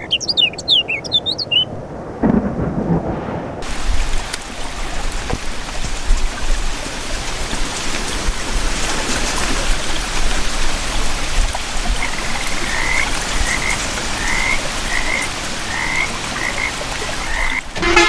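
Steady rain falling, with a low rumble of thunder about two seconds in and frogs croaking, their calls repeating in a run near the end.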